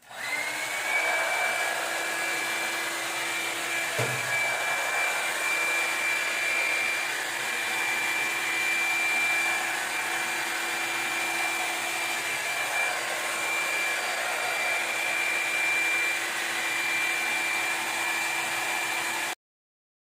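Revlon One-Step hair dryer brush running on its low setting 1: a steady rush of air with a high whine from the motor, a brief low bump about four seconds in, cutting off suddenly near the end.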